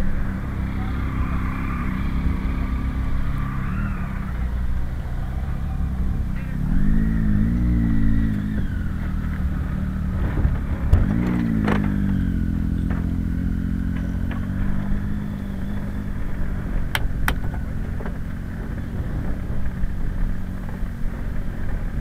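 Motor vehicles driving past and accelerating over a steady low rumble, with engine pitch rising twice, about a third of the way in and again about halfway. There are a couple of sharp clicks later on.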